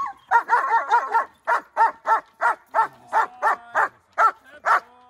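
Young German Shepherd barking in a rapid, steady string, about three barks a second.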